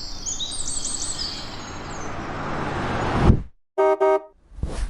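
Small birds chirping over a rushing noise that swells and then cuts off suddenly, followed by two short, clear beeps in quick succession and a brief burst of noise.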